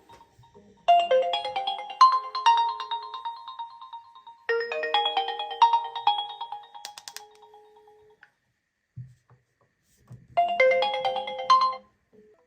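A smartphone's incoming-call ringtone: a short melody of pitched notes played three times, each phrase opening with a quick run of notes. A pause of about two seconds comes before the third phrase, which cuts off abruptly.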